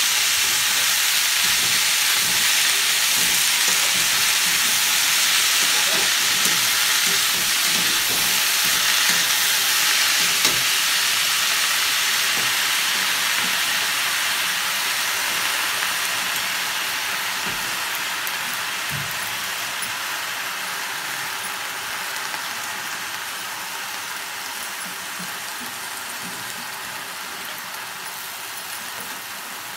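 Fresh spinach leaves sizzling in hot oil over fried potatoes in a steel kadhai, a steady hiss that slowly dies away. A few light knocks and scrapes of a steel spatula come in the first half.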